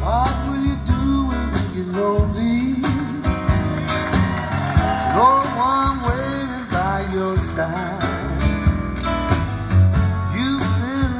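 A song with a singing voice, guitar and strong bass, played back through a pair of Seeburg DDS 1 "Discotheque" speakers with Altec 811 horns.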